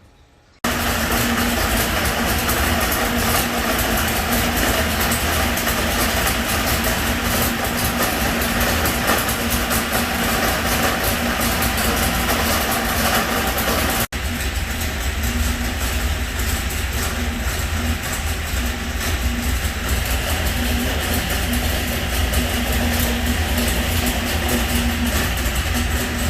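Freshly built V8 race engine for a 1969 Corvette running steadily on an engine dyno at an even, low speed while warming up, loud and close. It cuts out for an instant about halfway through, then carries on the same.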